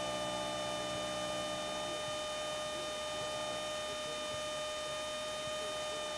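Steady electrical hum with a thin high whine in a Cessna 172's cockpit audio feed between radio calls. A lower hum fades out about two seconds in.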